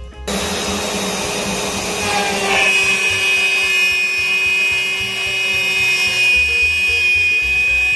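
Small CNC router's spindle running at about 18,000 rpm while a 1/4-inch down-cut end mill cuts a slot in wood at a 60-inch-per-minute feed. It starts abruptly just after the beginning: a loud, steady high whine over cutting noise, with the pitch shifting briefly about two seconds in before it holds steady.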